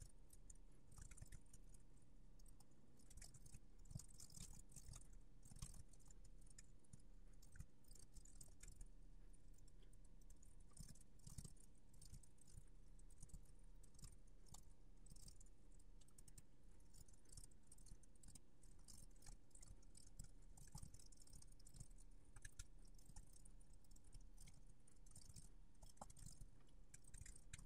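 Faint typing on a computer keyboard: scattered, irregular key clicks over a faint steady hum.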